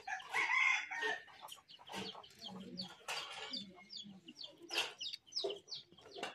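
Chickens clucking, a string of short calls that is loudest about half a second in.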